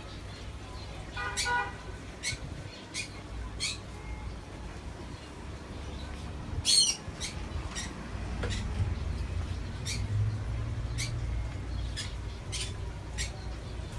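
Small caged birds chirping: short, high chirps come every half second to second or so, with one louder call about seven seconds in, over a steady low rumble.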